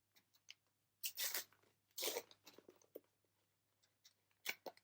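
Crinkly plastic trading-card packaging rustling in a few short bursts as cards are handled, a couple of seconds apart.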